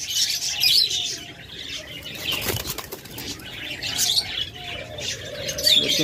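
Collared doves beating their wings in a wire cage, a rustling flutter that comes in several bursts, with short bird chirps mixed in.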